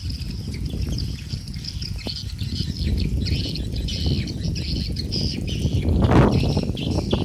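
Swiftlet calls: a dense, high twittering chirp that goes on throughout, over a low rumbling noise that swells from about six seconds in.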